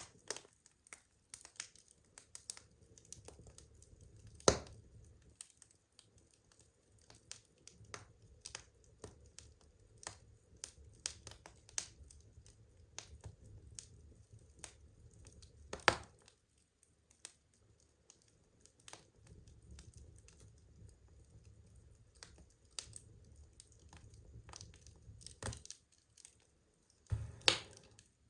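Burning wood logs crackling: a steady run of small pops and snaps over a soft low rumble of the flames, with three louder pops, about four seconds in, near the middle and near the end.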